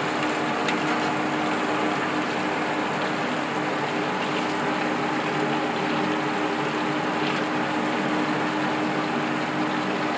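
Hot oil in a wok sizzling and bubbling hard as battered chicken pakoda pieces deep-fry, a steady frying hiss with a low hum underneath.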